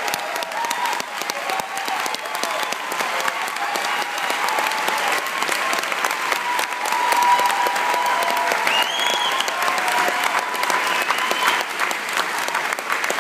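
Large audience applauding steadily, with some voices calling out over the clapping.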